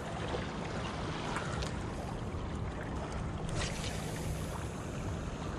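Steady seaside ambience of wind and water with a faint low steady hum, during a cast and retrieve with a spinning rod.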